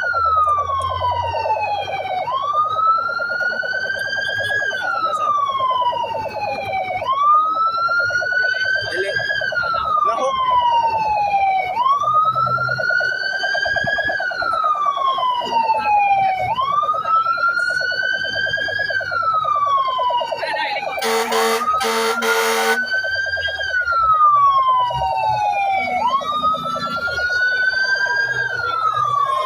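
Emergency vehicle siren on a slow wail, each cycle rising quickly and falling slowly, about every four and a half seconds. A short burst of horn blasts cuts in about 21 seconds in, and a second siren overlaps near the end.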